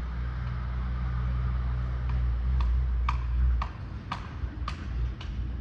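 A steady low engine rumble, with a run of sharp, evenly spaced knocks at about two a second starting about halfway through. The rumble drops away as the knocks go on.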